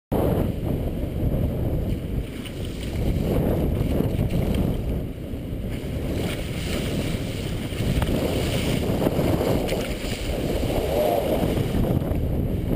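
Wind buffeting the microphone of a camera on a moving kite buggy, mixed with the low rumble of the buggy's wheels rolling over wet beach sand; a steady, fluctuating rushing noise with no engine.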